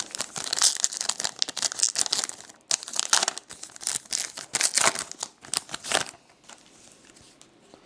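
A 2012 Topps Finest Football card pack's wrapper being torn open and crinkled by hand: a dense run of sharp crackles that stops about six seconds in.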